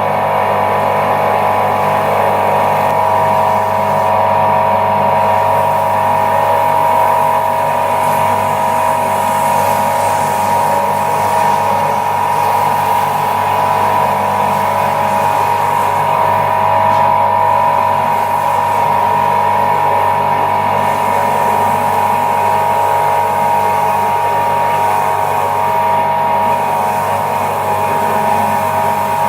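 Electric motor of a woodworking power tool running steadily at constant speed, with a steady whine.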